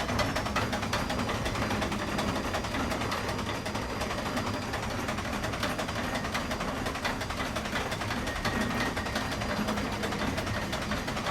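Steam crane in constant operation: a steady, busy mechanical clatter of fast rapid ticks over a continuous rumble.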